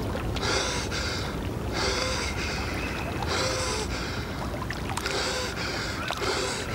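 A man breathing heavily through an open mouth, gasping breaths in and out in a steady rhythm about every second and a half.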